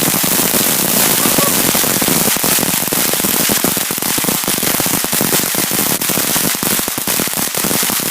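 Firework crackling: a dense, rapid run of small cracks over a hiss that starts suddenly and keeps going at a steady, loud level.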